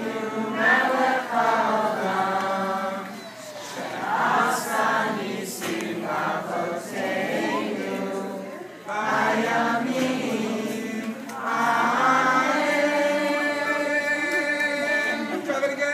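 A group of voices singing a Hanukkah song together in unison, with long held notes.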